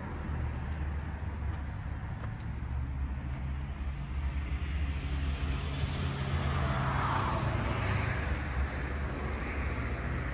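Outdoor vehicle noise: a steady low engine hum, with a vehicle passing that swells and fades about seven seconds in.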